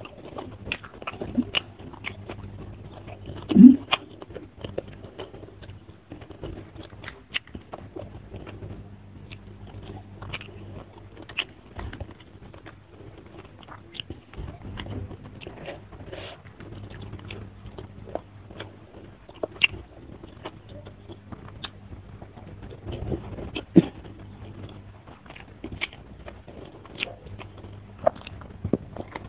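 Close-miked chewing and wet mouth sounds of someone eating fish, rice and vegetables by hand, a steady run of short sharp clicks and smacks. One much louder thump comes about three and a half seconds in, over a faint low hum.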